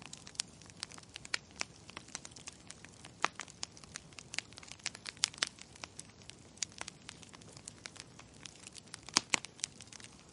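Wood fire crackling in a fireplace: irregular sharp pops and snaps over a faint hiss, with a few louder pops about three, five and nine seconds in.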